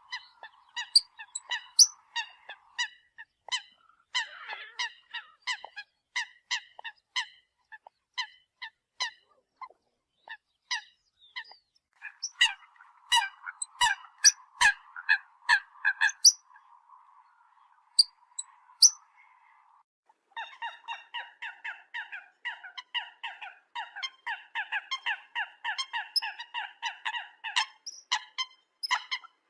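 Eurasian coots calling, as a bird-lure recording: a long series of short, sharp calls repeated several times a second. The calls thin out briefly past the middle, then come thick and fast.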